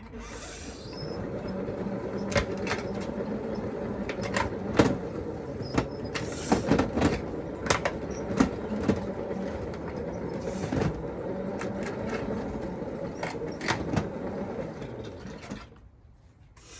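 Hand-cranked spin dryer of a mini manual washing machine spinning with a steady whirring hum and irregular knocks and rattles, stopping about a second before the end.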